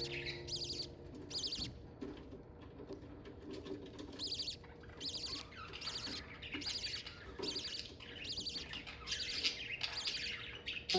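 Pet budgerigars chirping: a steady run of short, high chirps, one or two a second.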